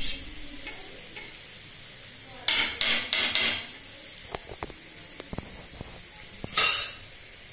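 A metal spoon beating eggs in a stainless steel bowl: a cluster of quick scraping strokes a couple of seconds in, then several light clinks of spoon on bowl, and one more short stroke near the end.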